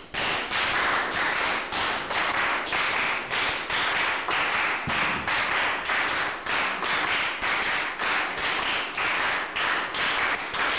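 Body percussion: hands clapping and slapping in a steady, even rhythm of about three strokes a second.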